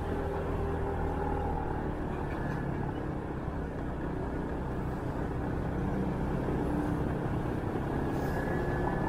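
Motorbike engine running steadily while riding along a city street, with wind and road noise.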